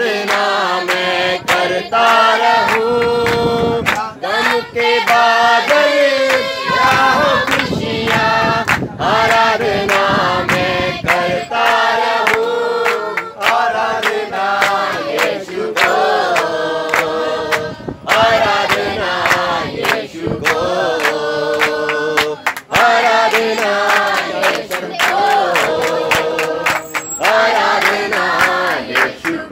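A mixed group of men, women and children singing together in unison, keeping time with steady rhythmic hand clapping.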